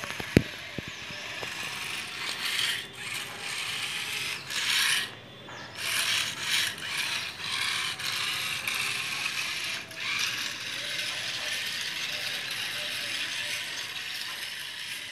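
Small DC gear motors of a two-wheeled robot car running as it drives over concrete, speeding up and easing off several times, steadier over the last few seconds. A sharp click about half a second in is the loudest moment.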